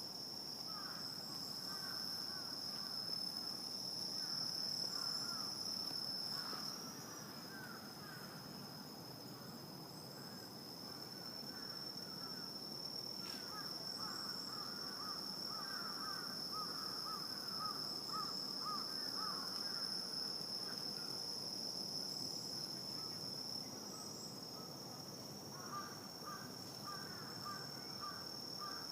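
Night insect chorus: a continuous high-pitched cricket trill, with patches of rapid, lower chirping calls coming and going over it.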